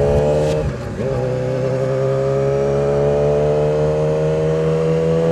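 Sport motorcycle engine running under way. Its note breaks and drops about a second in, then climbs slowly and steadily as the bike pulls.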